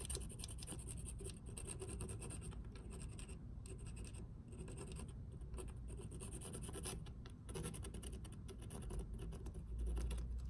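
Dupli-Color touch-up paint pen tip scratching in short, repeated strokes against the curb-rashed edge of an alloy wheel rim as paint is worked into the gouges, with brief gaps between strokes. A low rumble swells near the end.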